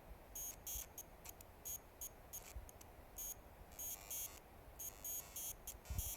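Sound chip of an electric LED candle played through a small 8-ohm speaker: irregular short bursts of high, buzzy beeping, several a second, some brief and some held for a moment.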